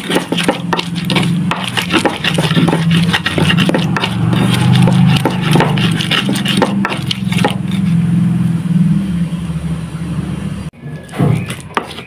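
Stone pestle grinding spice paste in a clay cobek mortar: fast, rhythmic grating and knocking strokes over a steady low hum, the paste nearly ground smooth. The sound breaks off abruptly near the end and picks up again.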